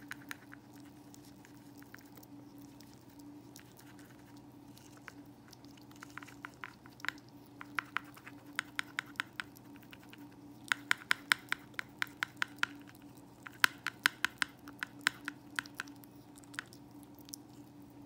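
A stoat licking and chewing leftover food off a plastic lid, making short sharp mouth clicks: a few scattered at first, then two quick runs of about five a second past the middle.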